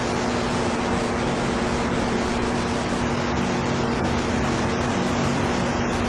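Steady hiss with a low, even hum underneath: room background noise with no voice.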